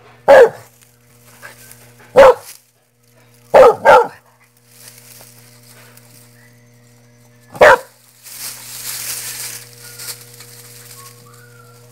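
Dog barking: five short, sharp barks spaced a second or more apart, two of them in quick succession about four seconds in. A stretch of hissing, rustling noise follows the last bark.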